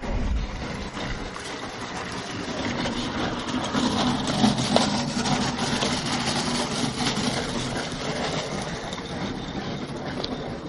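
Steady rushing, rumbling noise with a low hum under it, building over the first few seconds and easing off near the end.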